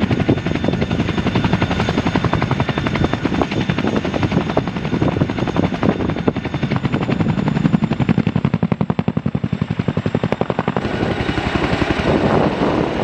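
Boeing CH-47 Chinook tandem-rotor helicopter flying, its rotor blades making a loud, fast, rhythmic chop.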